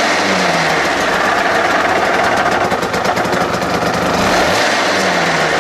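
Aprilia RS125's single-cylinder two-stroke engine idling, with the revs briefly rising and falling back twice, at the start and about four and a half seconds in. The owner wonders whether its running has an abnormal noise.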